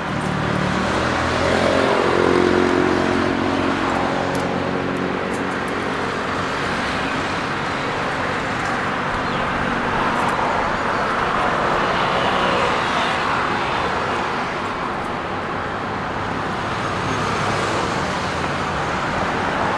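Steady road traffic noise, with a vehicle's engine hum most prominent in the first few seconds.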